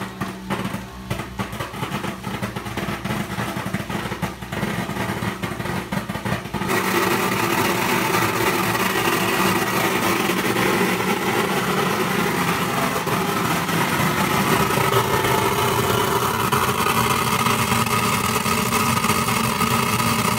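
Satake EVOLUTION MIR optical sorter running a second pass of pecan pieces. It starts with a rattling patter of pieces, then about seven seconds in steps up to a louder, steady machine run with a hum and a higher whine.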